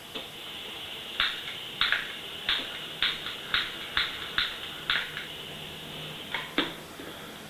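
A lighter clicked over and over, about twice a second, trying to light a small handheld gas torch; it does not catch, so the torch fails to ignite.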